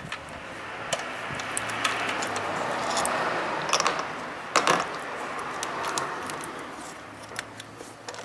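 Hand tools and metal parts clicking and clattering while a throttle body is being removed, with several sharper knocks midway over a hiss that swells and fades.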